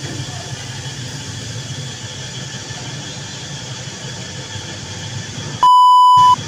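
Steady machine hum and hiss from a soft-serve ice cream machine dispensing into a cup. Near the end the hum cuts off for a loud, steady test-tone beep lasting under a second, the tone that goes with TV colour bars, and then the hum comes back briefly.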